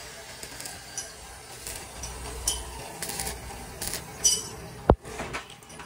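Stick welder striking short tack welds on a steel door frame: a string of brief crackling arc bursts, about seven in a few seconds. Near the end comes a single sharp thump, the loudest sound.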